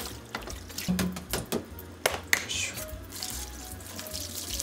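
Kitchen tap running into a stainless-steel sink while a plastic cutting board and utensils are rinsed, with repeated knocks and clatter as they are handled. Soft background music plays underneath.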